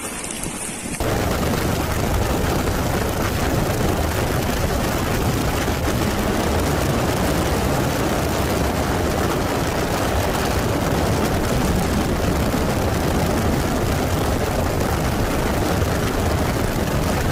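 Helicopter noise recorded from aboard the aircraft: a steady, loud rotor and engine din. It starts abruptly about a second in, after a moment of quieter wind noise.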